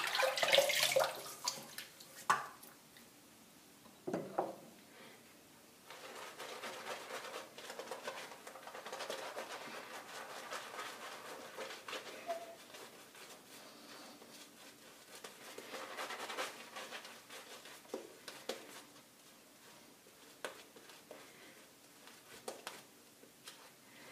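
A brief splash of running water at the start, then a shaving brush working lather onto wet skin: a soft, scratchy swishing that comes and goes as the face is re-lathered for the next pass.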